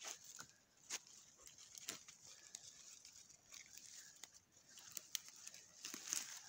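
Footsteps of a person and a tracking hound moving through dry fallen leaves: irregular light crunches and rustling.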